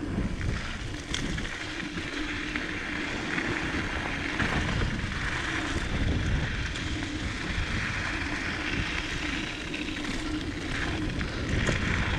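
Diamondback Mission 2 mountain bike descending a rocky dirt trail at speed: a steady rushing rumble of wind on the microphone and tyres over dirt and rock, with occasional knocks and rattles from the bike.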